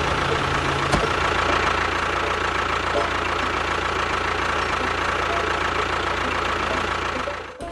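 Small motor of a DIY mini tractor running steadily with a thin, even whine; the sound breaks off abruptly near the end.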